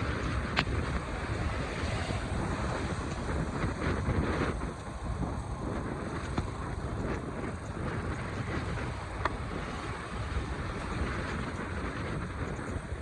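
Rainy outdoor street ambience: a steady rushing noise with wind rumbling on the microphone and a few sharp ticks.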